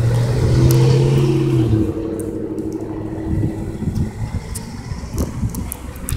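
A passing motor vehicle's engine hums steadily, loudest in the first two seconds, then fades away. After it, a fox squirrel cracks sunflower seed shells with faint, sharp clicks.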